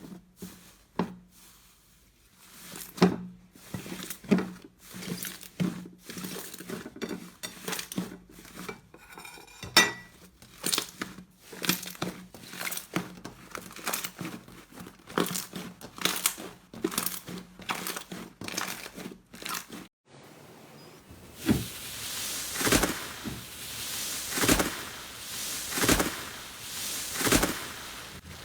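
Slime being squeezed and poked close to the microphone: dense crackling clicks and pops. After a sudden change about two-thirds in, it gives squishy swells roughly every second and a half.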